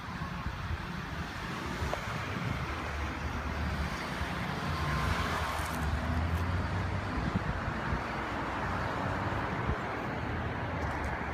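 Road traffic: cars passing with engine and tyre noise, one swelling louder around the middle.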